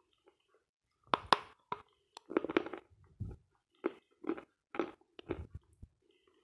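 Close-miked chewing of a mouthful of dense, dry "Sloyka" eating chalk: short, dry crunches, irregular at roughly two a second, starting about a second in.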